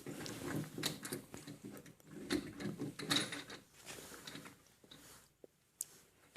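Light clicks and small knocks of a beer faucet being handled and screwed onto a kegerator shank by hand, irregular and spaced out.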